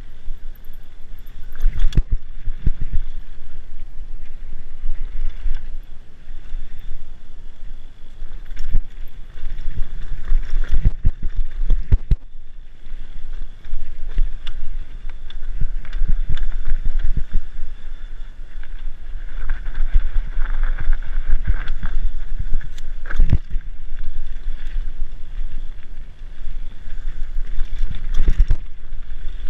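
A mountain bike descending a rough dirt trail at speed, with the rider's wind buffeting the camera microphone into a loud rumble. Frequent sharp knocks and rattles come from the bike as it hits bumps and roots, bunching up in the rougher sections.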